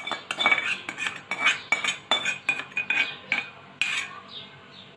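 A metal spoon and ladle tapping and scraping against a steel cooking pot of rice: a quick, irregular run of ringing metallic clinks, about two or three a second, thinning out near the end.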